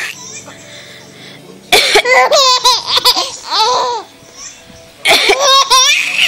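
A cough, twice, each time followed by a four-month-old baby's squealing laugh, broken into short bursts. The first round lasts about two seconds and the second starts about five seconds in.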